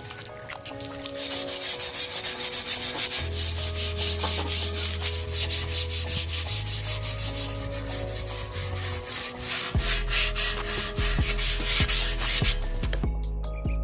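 Sandpaper rubbed rapidly back and forth over a bicycle frame in quick, regular strokes, stopping near the end. This is the sanding stage of a repaint.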